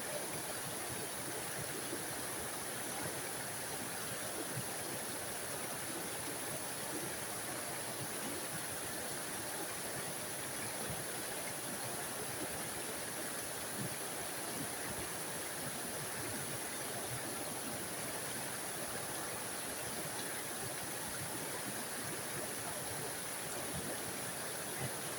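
Small forest waterfall: water spilling and splashing in a steady, even rush with a bright hiss on top.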